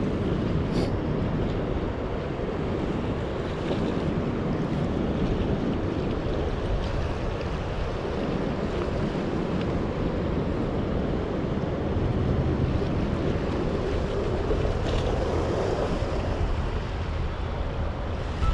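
Wind buffeting the microphone over small waves washing against jetty rocks: a steady rushing noise.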